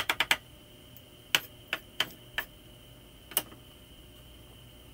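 Cleaver chopping garlic on a wooden cutting board: a fast run of chops at the start, then single knocks spaced out over the next three seconds, stopping after about three and a half seconds.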